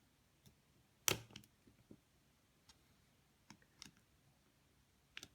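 Scattered small clicks and taps from handling a cam lock cylinder and key blank, the sharpest about a second in.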